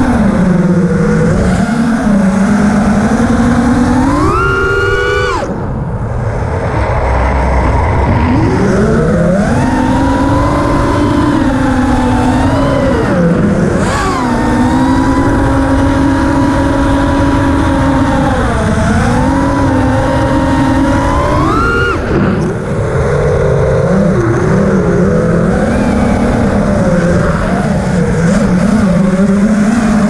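FPV racing quadcopter's brushless motors and propellers whining, the pitch rising and falling with the throttle. Twice, near 5 s and 22 s, the whine climbs sharply and then drops off as the throttle is cut, with a rushing haze of wind underneath.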